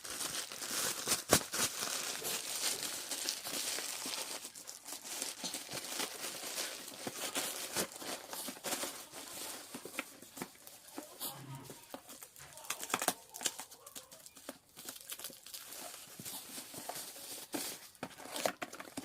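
Packaging crinkling and tearing as it is handled, with many quick clicks and rustles.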